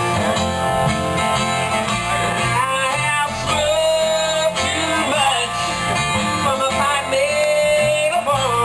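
Country-style music with guitar and a singing voice.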